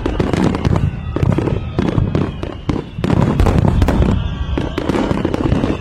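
Fireworks display: many overlapping bangs and crackles over deep booms, growing denser and louder about three seconds in.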